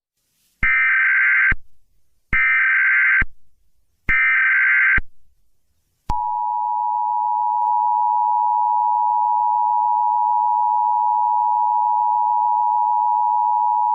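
Emergency Alert System tones: three short bursts of SAME header data, each just under a second long, then, about six seconds in, the loud steady two-tone EAS attention signal. The header bursts encode the alert, and the attention signal announces that an emergency message follows.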